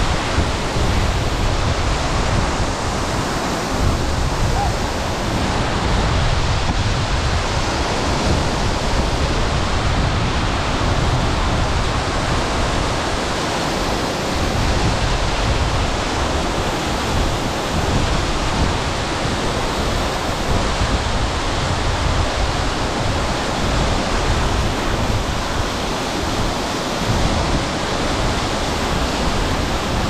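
Waterfall pouring onto rocks close by: a loud, steady rush of falling water, with an uneven low rumble beneath it.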